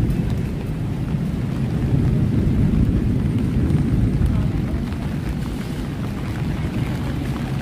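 Low rumble of road traffic on a wet road, swelling for a couple of seconds about two seconds in as a vehicle passes, then easing.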